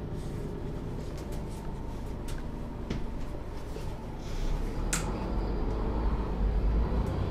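Inside a MAN NG 323 articulated city bus: its six-cylinder diesel engine runs low while clicks and knocks rattle in the cabin, with one sharp click about five seconds in. The engine rumble grows louder from about four seconds in.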